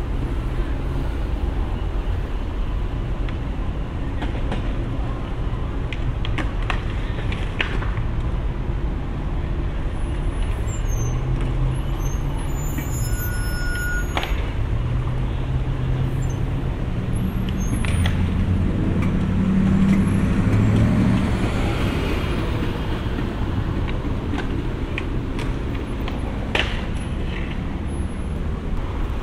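Street traffic at a streetcar stop as a vintage PCC streetcar rolls up along the rails and stops. A low vehicle drone swells and fades about two-thirds of the way through, with a few faint clicks.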